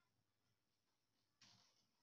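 Near silence: faint room tone, with one brief soft click or rustle about one and a half seconds in.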